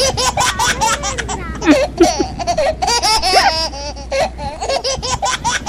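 A young child laughing in a long run of quick, high-pitched peals.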